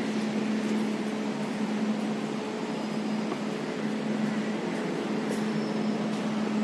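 A steady low hum under an even rushing noise.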